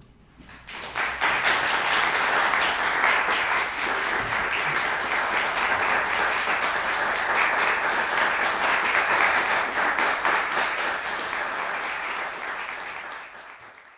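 Audience applauding, breaking out about half a second in, holding steady, and fading near the end.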